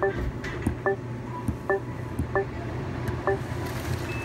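Touchscreen ordering kiosk at Wawa beeping as its buttons are tapped: about five short, identical electronic beeps at uneven intervals, one for each selection. A steady low hum runs behind them.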